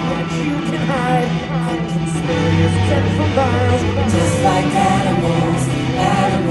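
Rock music with a sung vocal line and guitar, played loud over a theatre's sound system.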